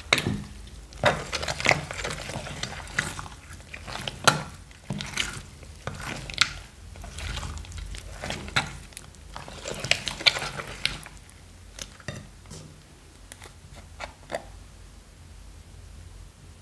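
Silicone spatula stirring thick, bead-filled slime in a glass dish: wet squelches and crackles with sharp clicks, coming thick for about eleven seconds, then sparser and quieter.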